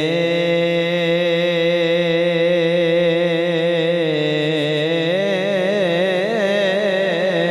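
A man's voice chanting a long drawn-out note of Punjabi devotional verse into a microphone. The pitch holds steady at first, then wavers into ornamented turns about five seconds in.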